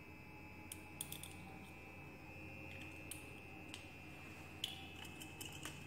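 Scattered light clicks and taps from handling a glass pipette and a petri dish, the sharpest about three-quarters of the way in. A steady faint high whine and a low hum run underneath.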